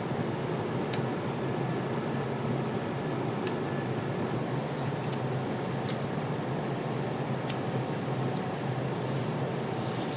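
Light scattered clicks and snips from scissors cutting double-sided carpet tape and from plywood pieces being handled and pressed together, over a steady hiss.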